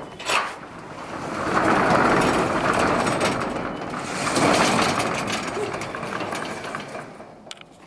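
A latch clicks open, then a corrugated steel roll-up door rattles loudly as it is pushed up and rolls open, the rattling dying away near the end.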